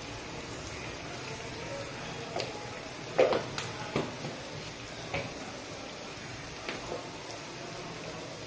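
Chopped green capsicum frying in oil in a pan, with a steady sizzle and a handful of short sharp clicks or pops, the loudest about three seconds in.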